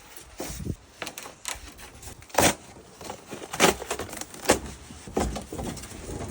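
Cardboard packaging of a chest freezer being handled and pulled off: irregular scrapes, rustles and knocks, with three louder knocks about a second apart in the middle.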